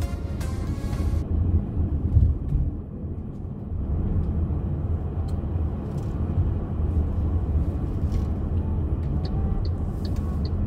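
Road noise heard inside a car's cabin while driving slowly in town traffic: a low, steady engine and tyre rumble, with the tail of background music cutting off about a second in. Near the end comes a run of quick, regular ticks, the turn signal clicking as the car nears a right turn.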